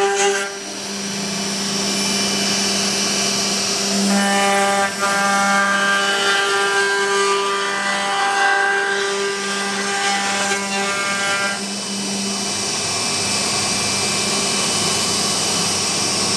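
CNC router spindle running with a steady whine as its end mill carves a wooden sculpture. The whine grows richer and louder from about four seconds in until about twelve seconds, then settles back.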